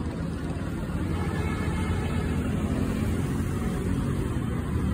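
Street traffic: a steady low rumble of motorbikes and cars passing on the road.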